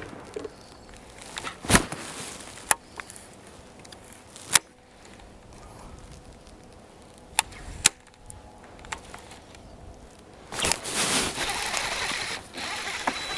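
Bass fishing from a boat deck: a few sharp, separate clicks of rod and reel tackle, then, about ten seconds in, a louder rough rushing noise that lasts to the end while a hooked fish is fought on a bent rod.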